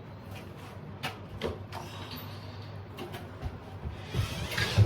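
Stones or bricks being handled, giving a handful of light knocks and clicks, with a rough scraping sound a little after four seconds.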